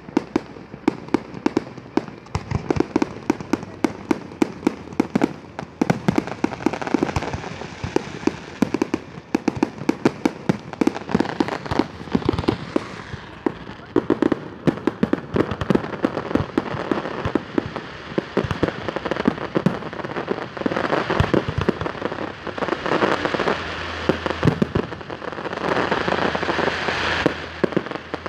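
Aerial fireworks display: shells burst in a rapid, irregular volley of sharp bangs, several a second. A hissing crackle thickens under the bangs in the last third.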